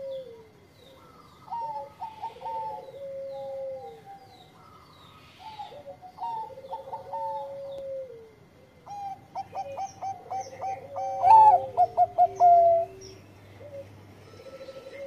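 Zebra dove (perkutut bangkok) singing its cooing song: several phrases of clipped, evenly spaced coo notes, each ending in a longer drawn-out note, with a longer, faster run of clipped notes in the second half.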